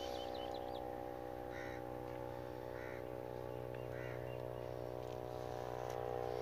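Three short, harsh bird calls about a second apart, over a steady low hum made of many even tones.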